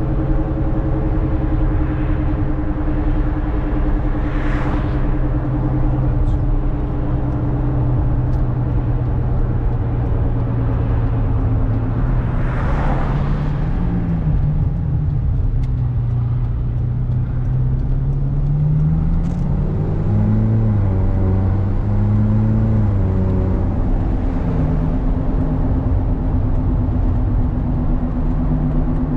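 Ferrari California's 4.3-litre V8 running steadily under road and tyre noise, its note dropping about ten seconds in. It then rises and falls several times through gear changes as the car accelerates in sport mode, before settling back to a steady drone near the end.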